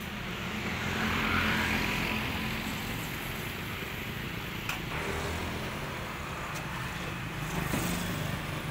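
Garbage truck engine idling with a steady low rumble, briefly swelling louder about a second in, with a few faint knocks over it.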